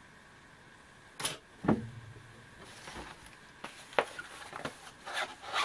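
Objects being moved and set down on a craft table: a sharp knock and a dull thump about a second in, then rustling and scattered light taps as a plastic cutting mat and paper are handled.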